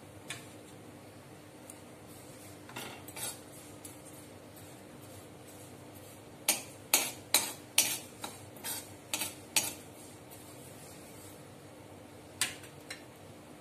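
A spatula clinking and scraping against a metal kadai as sesame seeds are dry-roasted and stirred. There are a few scattered clinks, then a quick run of about eight at roughly two a second midway through, and one or two more near the end.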